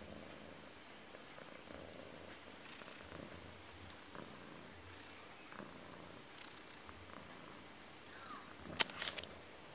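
A Persian cat purring faintly right against the phone's microphone. Near the end comes one sharp knock, the loudest sound, with small clicks around it.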